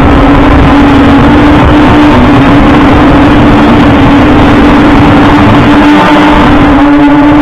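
OVERMAX X-Bee Drone 8.0 quadcopter's motors and propellers buzzing in flight, picked up by its own onboard camera: a loud, steady hum whose pitch wavers slightly as the motors adjust. Wind rumbles on the microphone underneath.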